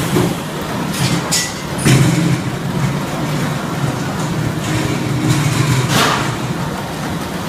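Chicken-meat weight-sorting line and plant machinery running: a steady low hum with a few short sharp hisses or clacks, about one, two and six seconds in.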